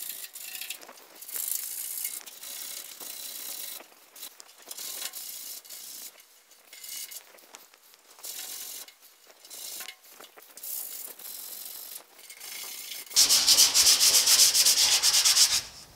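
Sandpaper rubbed by hand over the bare steel of a truck cab panel, in uneven strokes with short pauses. About 13 seconds in the sanding becomes much louder and faster, a rapid scratching for nearly three seconds, then stops.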